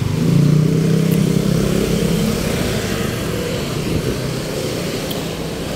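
An engine running close by, a steady hum that is strongest at first and eases off slightly after about two seconds, over constant street traffic noise.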